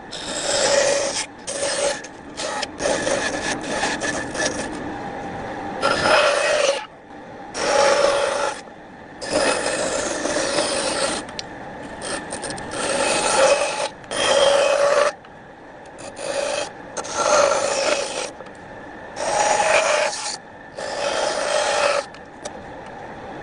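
Wood being rasped or scraped in repeated short strokes, each about a second long, with quieter gaps between them.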